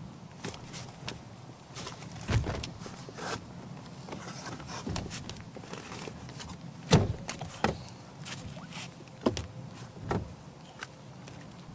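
Irregular knocks, scuffs and thumps of a person shifting about in a loaded canoe and clambering out onto a rock ledge. The loudest thump comes about seven seconds in.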